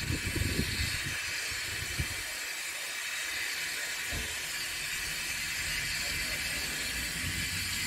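Steady hiss of escaping steam from a steam locomotive, with uneven low rumbling in the first couple of seconds, as a train of vintage wooden passenger coaches moves slowly past.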